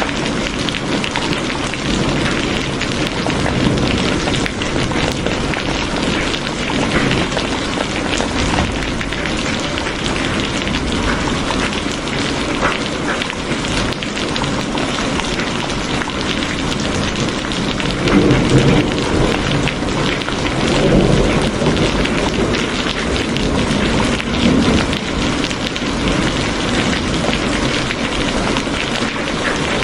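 Steady rain falling. A few low rumbling swells come through about two-thirds of the way in.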